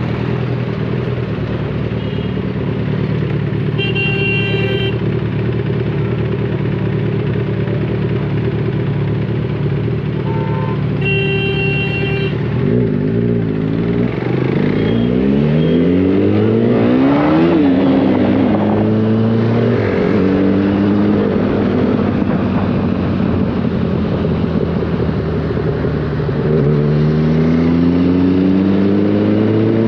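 Motorcycle engines in slow traffic, running steadily at low speed, then accelerating with rising pitch and gear changes from about halfway, and rising again near the end. A vehicle horn toots briefly twice, about 4 and 11 seconds in.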